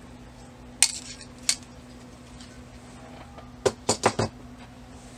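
Knitting-machine weights and yarn clips being taken off the hanging knitted fabric, clinking against each other: a sharp metallic clink about a second in, another shortly after, and a quick cluster of three near four seconds.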